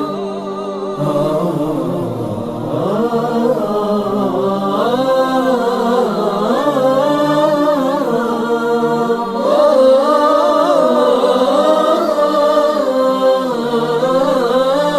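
Nasheed vocal intro: several layered voices chant a slow melody with held notes that glide up and down, before the lyrics begin.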